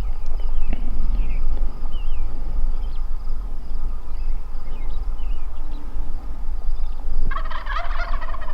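A wild turkey gobbler gobbles once near the end, a rapid rattling call. A steady low rumble runs underneath, with small birds chirping.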